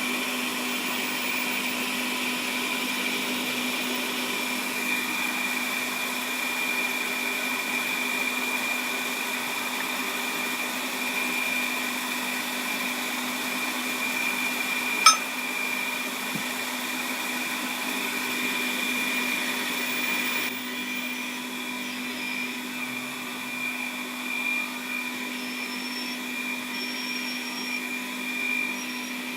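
Small lathe running steadily, its motor and gears giving a constant whine. A single sharp click about halfway through, and the sound drops slightly about two-thirds in.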